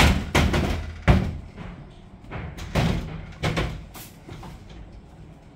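A wooden door being closed and handled: a run of sudden knocks and thuds over about four seconds, the loudest about a second in.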